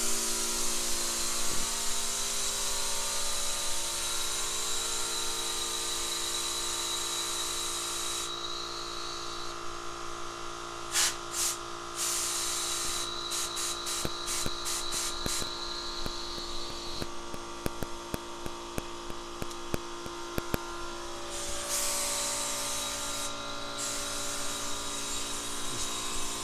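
Paint spray gun hissing in long bursts with a faint whistle, stopping for a few seconds at a time with a few clicks in the breaks. A steady electric-motor hum runs under it throughout: a 10-gallon, single-stage, 1 HP air compressor that is not keeping up with the air demand of the gun and an air-fed respirator.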